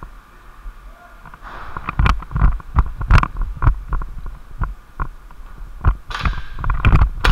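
Footsteps on a concrete floor with a body-worn camera jostling: a string of heavy thumps and knocks, two to three a second, beginning about a second and a half in.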